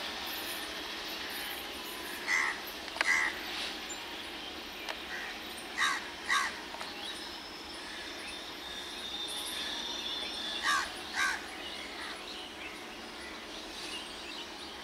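Crow cawing in three pairs of short, harsh caws spread over the span, over a steady background hiss.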